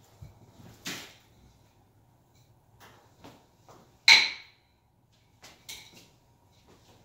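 Nunchaku being swung and caught during a kata, giving about six sharp clacks as the handles are caught and snapped against the hands and body. The loudest clack comes about four seconds in and has a brief ringing edge.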